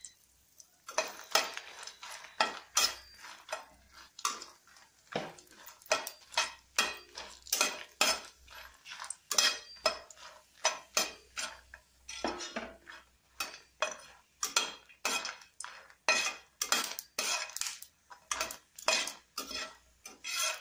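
A utensil clattering and scraping against a small frying pan while stirring dried red chillies frying in oil. The strokes come quickly, about twice a second, starting about a second in.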